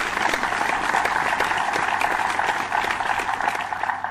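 Recorded applause sound effect, a crowd clapping steadily, played as a reward cue for a correct answer.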